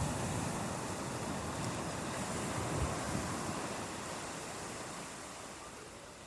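Ocean surf on a beach: a wave breaks and washes in at the start, then the hiss slowly fades as it draws back.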